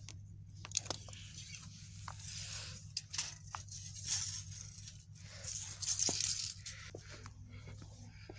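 Crunching and scraping on gravel, like footsteps, with scattered sharp clicks and two louder crunchy bursts about four and six seconds in, over a steady low hum.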